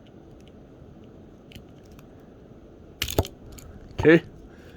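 A single sharp snip about three seconds in: scissors cutting through a phone's lanyard strap, with faint handling clicks before it.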